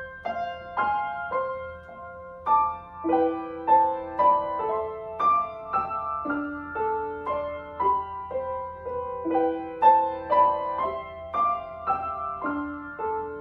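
Upright piano being played: a melody with chords in the middle register, notes struck about twice a second and left to ring.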